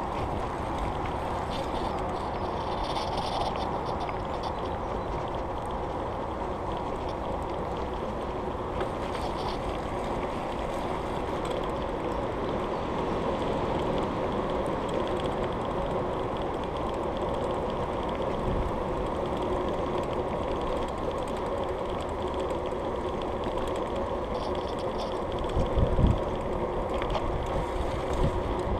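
Bicycle tyres rolling steadily over a rough tarmac path, a continuous even rumble and hum. Near the end, wind buffets the microphone with low thumps.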